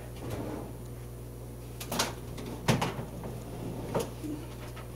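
Handling noise: three or four short clicks and knocks as an HDMI cable and plug are fitted at the back of a TV, over a low steady hum.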